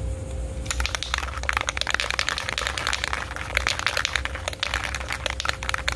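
Aerosol spray can of self-etching primer being shaken hard. Its mixing ball rattles rapidly and continuously, starting about a second in.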